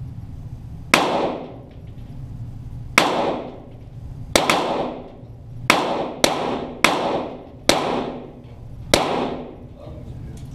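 .22 Walther GSP target pistol shots: eight single shots at uneven intervals, each with a sharp crack and a short echo dying away.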